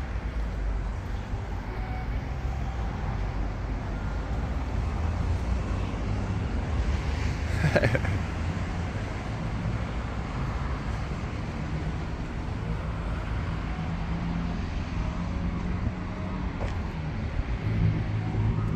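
Steady road traffic noise from passing cars, with one brief louder sound about eight seconds in.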